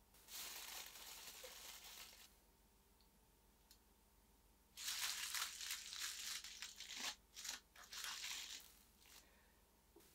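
Aluminium foil crinkling as it is wrapped and pressed around the base of a round cake pan. It comes in a spell of about two seconds near the start and a longer, choppier, crackly one from about halfway.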